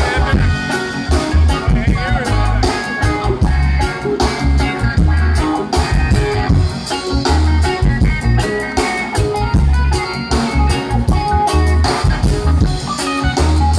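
Live reggae band playing, with electric guitars, bass guitar, keyboards and drum kit. Drum hits keep a steady beat over a heavy bass line.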